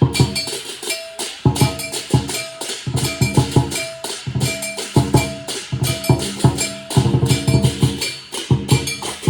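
Lion dance percussion: a big Chinese drum beaten in short, rapid phrases of strokes, with cymbals and gong crashing along in the same rhythm.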